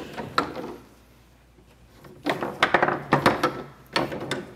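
Foosball in play: the hard ball knocked about by the rod-mounted figures and the rods clacking in the table. A few knocks at first, a short lull, then a quick flurry of hits in the second half.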